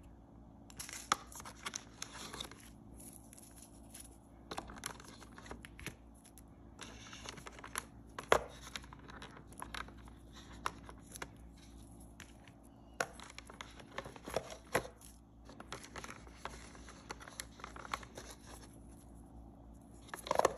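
Clear plastic wrap crinkling and tearing as bath bombs are handled and unwrapped, with scattered sharp clicks and taps.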